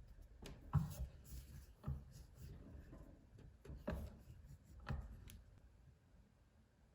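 Light rubbing and scratching with four soft knocks spread through the first five seconds, quieter toward the end: hand work on a small object at a bench.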